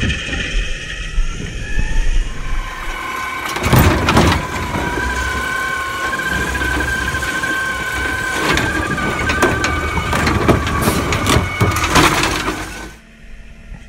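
Natural-gas automated side-loader garbage truck lifting and dumping a cart: a steady hydraulic whine from the arm as it works, with bangs of the cart against the hopper about four seconds in and several more near the end.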